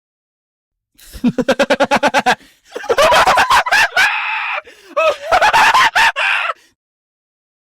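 An exaggerated, manic mad-scientist evil laugh, a cackle in three bouts: a rapid run of "ha-ha-ha" pulses, then a louder stretch with a held, scream-like peak, then a last burst that stops abruptly.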